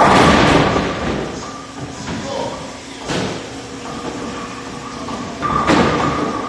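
A bowling ball thuds down on a wooden lane and rolls, then hits the pins with a crash about five and a half seconds in.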